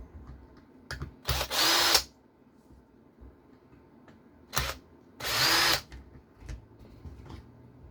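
Electric screwdriver spinning in two short runs, about four seconds apart, each preceded by a click, backing screws out of an RC car chassis during teardown.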